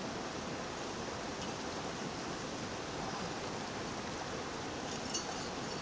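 Steady rush of flowing spring water, an even noise with no change.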